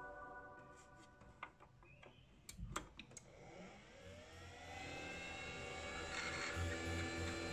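Tandon 262R hard disk drive starting up: a few sharp clicks, then the spindle motor spins up with a whine that rises in pitch and levels off into a steady running tone.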